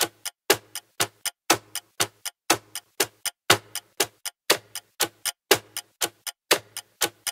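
Clock-ticking sound effect for a quiz countdown timer: sharp, even ticks about four times a second, with a louder tick once a second.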